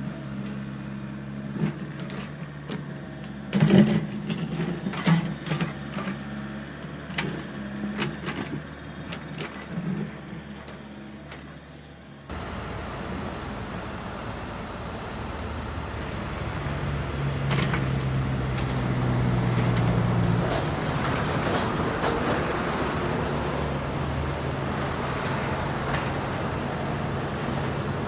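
Diesel engines of heavy earthmoving machinery running, with sharp metallic clanks and knocks over the first part. About twelve seconds in, the sound cuts abruptly to a louder engine with more noise, which swells for a few seconds in the middle.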